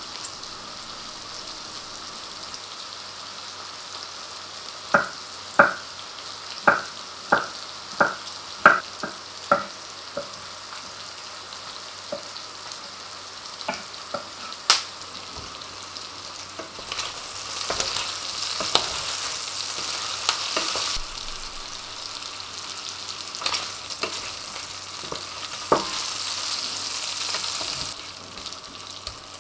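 Diced streaky pork-belly bacon sizzling steadily in a frying pan, with a run of about eight sharp knocks from a knife chopping garlic on a wooden cutting board, and a few more knocks later. In the second half the sizzle grows louder as the bacon is stirred with a wooden spatula.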